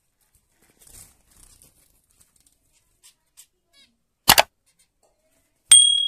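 A brief loud rattle, then near the end a sharp metallic ding that rings out and fades over about a second, over faint rustling.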